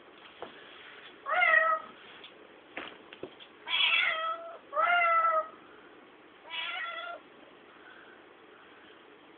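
Domestic cat meowing four times. Each call lasts about half a second to under a second, and two of them fall in pitch at the end. There are a few soft clicks between the first two meows.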